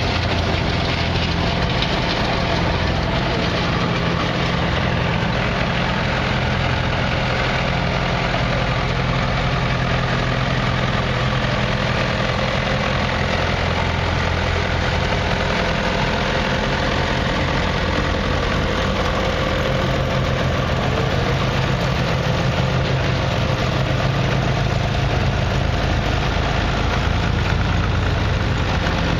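Old tractors' engines running at low speed as several vintage tractors drive past one after another, one of them a red Farmall Diesel. The engine sound is steady.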